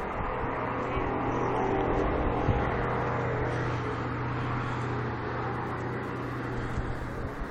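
Distant steady mechanical drone: a low hum over a broad rumble. The recorder takes it for a freight train stopped on the tracks, or a track repair train.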